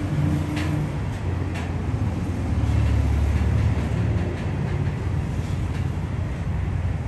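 Freight train rolling slowly, a steady low rumble with a diesel locomotive drone under it, with a few faint clicks from the cars.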